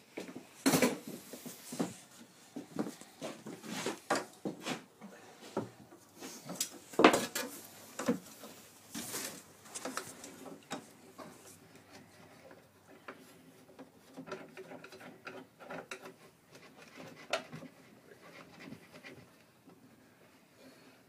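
Irregular wooden knocks, clunks and rubbing as steamed ash stems are worked into a wooden bending form and secured with dowel pegs, a metal strap and clamps; the loudest knock comes about seven seconds in, and the handling grows sparser near the end.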